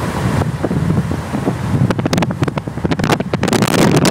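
Wind buffeting the microphone of a phone filming from a moving car, over a steady low rumble of road and engine noise. Harder gusts hit the microphone in quick succession from about halfway through.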